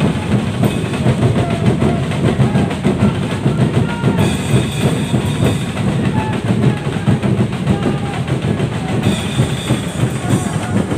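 Drums beating a dense, steady rhythm over the noise of a large crowd.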